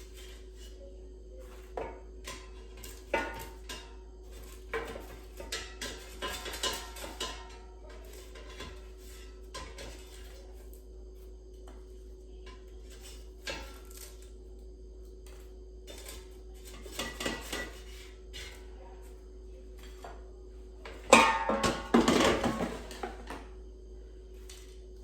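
Kitchenware clattering: utensils and dishes clink and knock in scattered bursts, with the loudest flurry near the end, over a faint steady hum.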